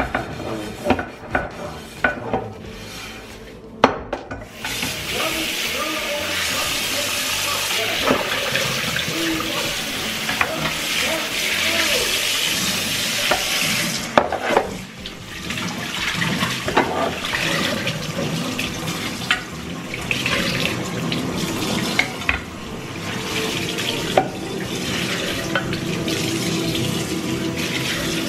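Kitchen tap running into a sink while dishes are washed and rinsed by hand, with scattered clinks and knocks of crockery and a frying pan. The water comes on about four seconds in, eases briefly about halfway through, then runs again.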